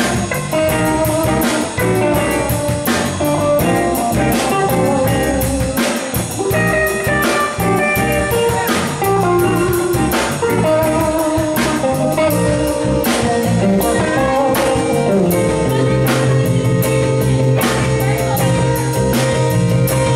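Live blues-rock band playing an instrumental passage: electric guitars, bass and drum kit, with a wavering lead melody over a steady beat. A low note is held through the last few seconds.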